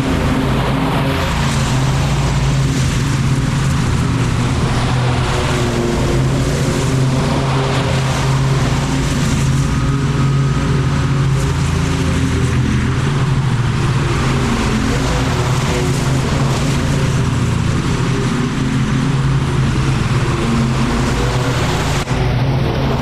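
Small gasoline engine of lawn equipment, most likely a mower, running steadily at constant speed.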